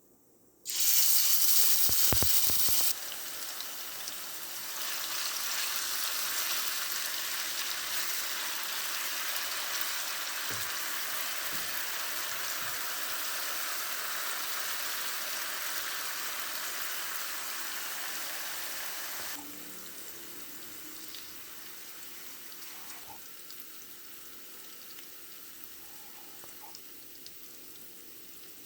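Vegetables frying in hot oil in a pan, sizzling. A loud sizzle starts suddenly about a second in, eases after a couple of seconds, and runs steadily before dropping to a quieter sizzle about two-thirds of the way through.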